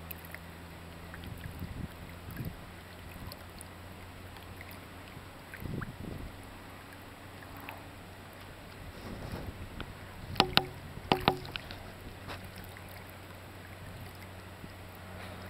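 Low steady hum of a boat idling on the water, with soft splashing and lapping. A short cluster of sharp knocks, the loudest sounds, comes about two-thirds of the way through.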